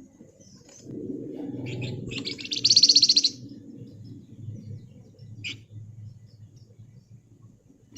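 A flamboyan (Javan fulvetta) songbird giving a fast, rattling high trill about two and a half seconds in, with short high chirps before and after it.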